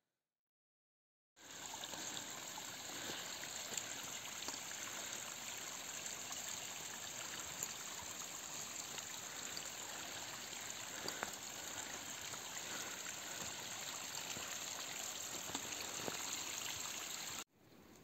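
Small mountain stream trickling and running steadily. It starts suddenly after a second or so of silence and cuts off abruptly just before the end.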